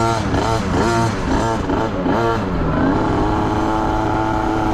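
A youth dirt bike's engine revving up and down in quick surges, about twice a second, then settling to a steady pitch about three seconds in.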